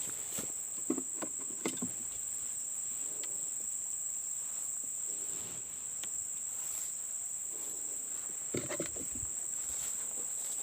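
Steady, high-pitched insect chorus, with a few soft knocks and rustles of handling about a second in and again near the end.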